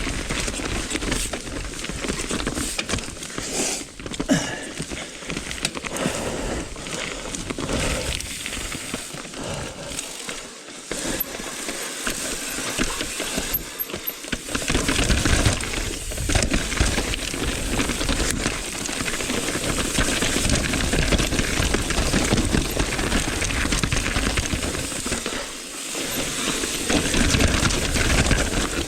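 Mountain bike riding over rough, rocky trail: tyres rolling on rock and dirt, with constant clattering and rattling from the bike, dipping briefly a few times.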